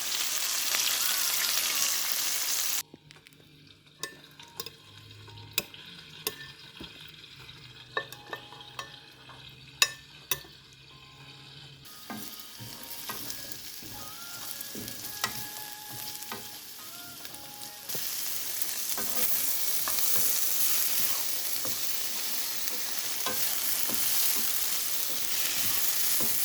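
Chicken frying in hot oil in a pan, sizzling, with a utensil stirring and clinking against the pan. The sizzling is loud at first, drops abruptly after about three seconds to a quieter stretch of sharp clinks, and returns loud for the last third.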